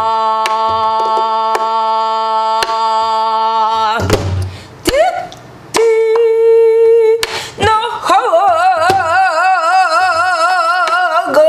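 A woman singing Korean guŭm, pansori-style wordless vocables: a long steady held note, then after a breath a shorter note and a long note with wide, wavering vibrato. A few sparse strokes on a buk barrel drum mark the beat.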